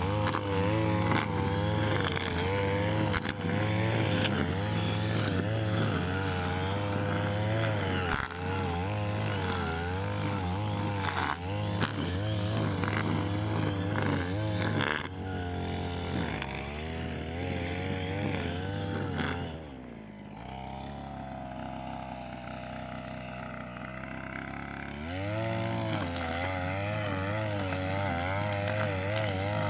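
Petrol brush cutter engine running at high revs, its pitch wavering up and down under changing load. About two-thirds of the way through it drops to idle for about five seconds, then revs back up.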